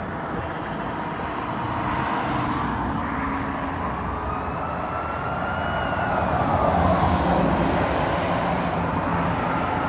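Road traffic noise, with a fire truck's siren starting to wail about four seconds in: one rising and falling sweep, and a second one beginning near the end.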